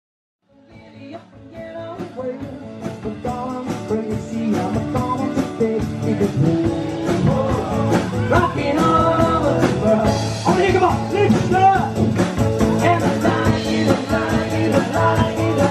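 Live acoustic rock: acoustic guitars strummed under a male singing voice, fading in over the first few seconds.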